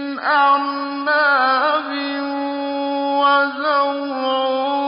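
A man's voice chanting Quran recitation, slow and melodic, holding long steady notes with ornamented turns between them.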